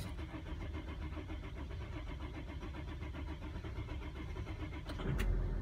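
Mercedes Sprinter van's engine cranking on the starter for about five seconds on a cold start, then catching and firing up near the end.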